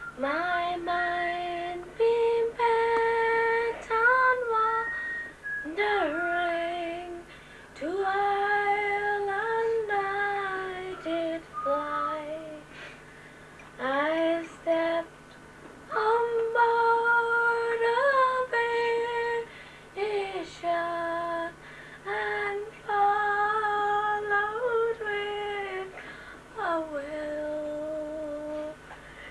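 A young girl singing solo and unaccompanied, holding long notes in phrases of a few seconds with short breaths between them.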